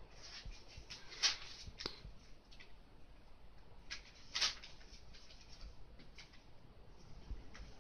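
A sleeping miniature dachshund snoring in short snores about three seconds apart, the loudest just after one second and about four and a half seconds in, with fainter short sounds between.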